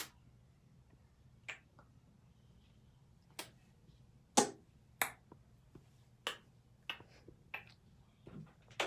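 A series of short, sharp clicks and taps, about eight, irregularly spaced, the loudest a little over four seconds in, over a faint low hum.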